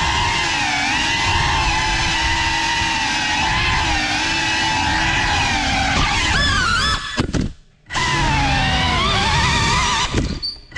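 GEPRC Cinelog35 cinewhoop's brushless motors and ducted propellers whining, the pitch rising and falling with the throttle. The sound drops out almost to silence briefly about seven and a half seconds in, and again near the end.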